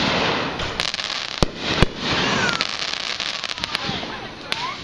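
Aerial firework shells bursting overhead: a loud burst, then three sharp bangs in the first two seconds, followed by a rapid run of crackling about halfway through.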